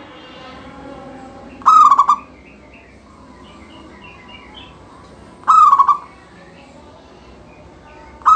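Local perkutut (zebra dove) singing its cooing song in loud, short stuttering phrases about every four seconds, twice in full and once more starting at the very end.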